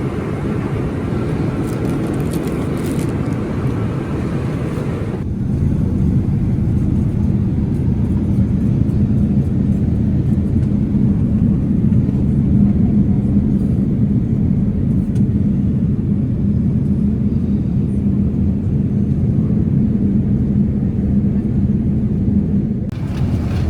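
Steady in-flight cabin noise of a Boeing 787-8 airliner, a mix of jet engine drone and airflow rush. About five seconds in, the sound changes abruptly, losing most of its hiss and becoming a deeper, louder rumble.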